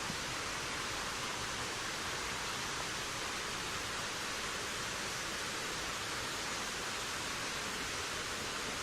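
Wind blowing steadily as an even hiss, with no gusts or changes in level.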